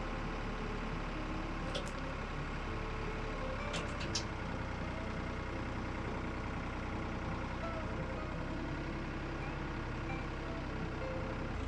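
Engine running steadily, with a few short sharp clicks about two and four seconds in.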